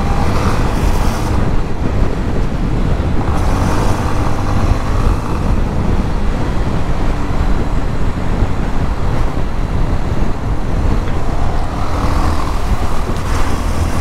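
Motorcycle riding at speed, its Yamaha Lander 250 single-cylinder engine running steadily under heavy wind rush on the rider's microphone.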